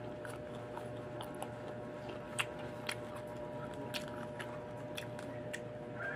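Chewing a mouthful of firm unripe green mango close to the microphone: irregular crisp crunches and wet mouth clicks, spaced about half a second to a second apart, over a faint steady hum.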